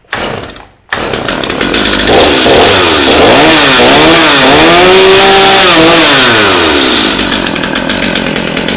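A Stihl MS250 two-stroke chainsaw is pull-started and fires about a second in. It is revved up and down several times and then settles into a steady run, taking the throttle cleanly with its rebuilt carburetor diaphragm: it sounds just like brand new.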